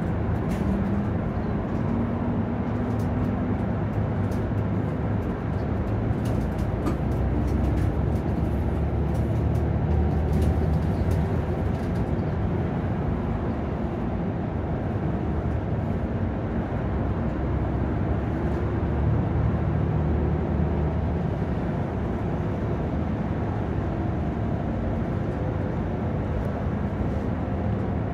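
Inside a Nissan Diesel PKG-RA274MAN city bus under way: steady diesel engine drone and road rumble, with small rattles and clicks through roughly the first dozen seconds.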